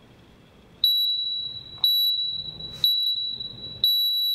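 Gym interval timer clock beeping its start countdown: four high, even beeps a second apart, the last one held longer as the work interval begins.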